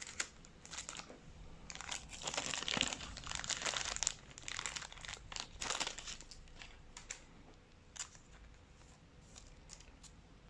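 Plastic crinkling and rustling as trading cards and their packaging are handled, densest for a few seconds in the middle, then tapering off to scattered small clicks and scrapes.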